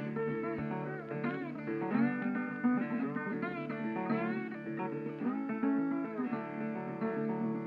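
Background music: a guitar tune with notes that slide up and down in pitch.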